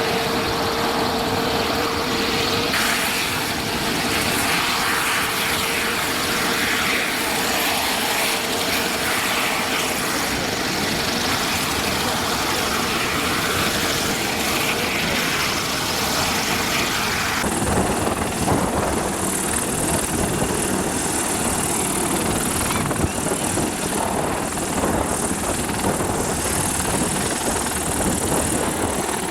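Mil Mi-28 attack helicopter running close by: a steady rush of rotor and turbine noise with the whistle of the blades. About two-thirds of the way in, the sound shifts abruptly, with a stronger high hiss and more low rotor sound.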